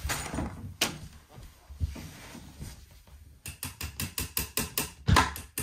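A few scattered knocks, then a rapid, even run of sharp clicks from a hand tool, about six a second, with one louder knock about five seconds in, during furniture assembly.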